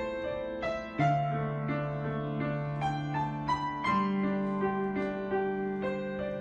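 Background piano music, slow and gentle, with single notes struck every half second or so over held bass notes.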